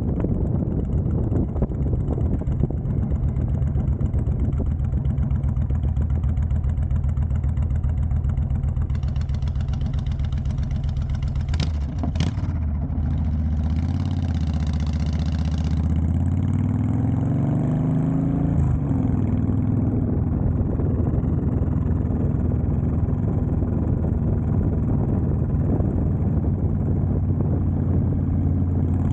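Honda Fury's V-twin running through a Cobra Speedster Swept exhaust while riding: a steady, deep exhaust note. About twelve seconds in come a couple of sharp knocks and the bike slows. It then pulls away with the pitch rising and settles back to a steady cruise.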